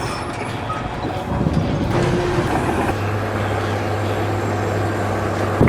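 A heavy engine running, like a truck or construction machine, with a steady low hum that sets in about halfway through.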